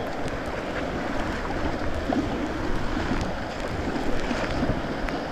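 Rushing white water around a kayak moving through rapids, a steady wash with small splashes and ticks of water on the hull.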